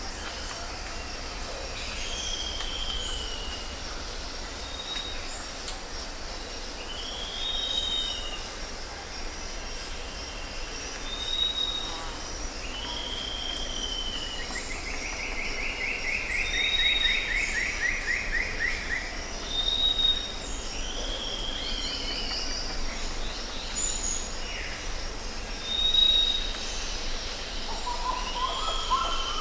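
Jungle ambience of several birds calling. One bird repeats a short arched call every couple of seconds, another adds short high whistles, and a rapid trill runs through the middle. Underneath is a steady high-pitched chirring of insects.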